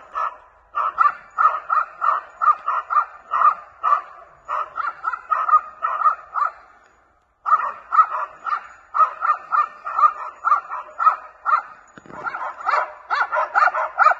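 Young West Siberian Laikas barking in quick, steady succession, baying a maral (red deer) to hold it in place for the hunter, with a short break just past halfway.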